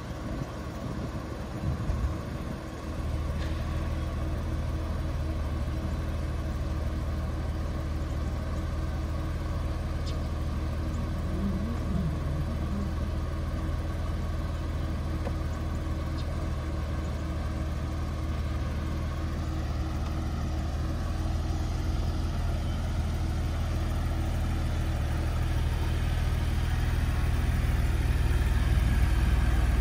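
Porsche 911 Carrera's flat-six engine starting up about two seconds in, then idling steadily. The idle grows gradually louder towards the end as the exhaust outlets come closer.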